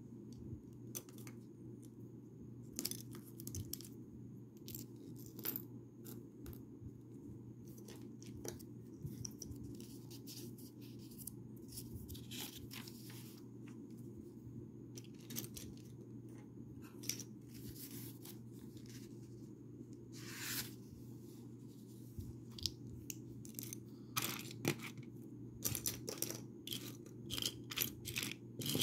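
Plastic Lego pieces clicking and clattering in irregular bursts as they are handled and fitted together, with a brief scrape or rustle partway through. A steady low hum runs underneath.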